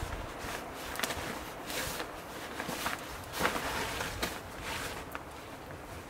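Footsteps: a person walking with irregular steps, about one a second.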